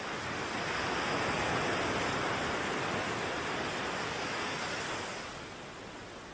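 Ocean waves washing in: a hiss of surf that swells within the first second, holds, and dies away about five seconds in.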